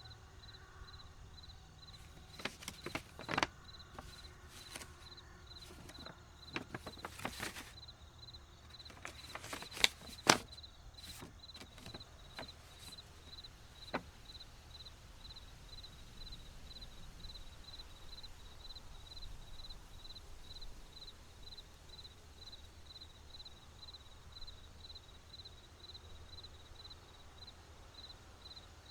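A series of clicks and knocks in short clusters, the loudest about ten seconds in, over a faint, evenly repeating high tick.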